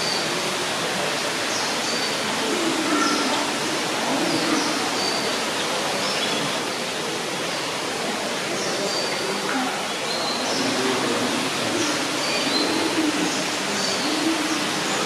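Steady rushing noise like running water, with short high chirps of small birds every second or two.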